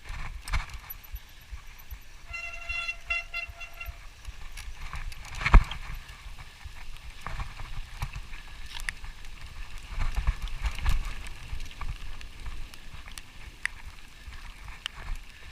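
Hiking footsteps and gear knocks on a wet, slippery trail over a low rumble of wind and handling on the microphone. A short, rapidly pulsing whistle-like tone sounds about two and a half seconds in, and a single sharp knock comes about five and a half seconds in.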